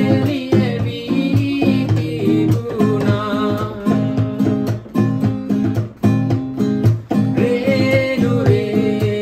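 A man singing while strumming chords on a nylon-string classical guitar, in a steady strumming rhythm.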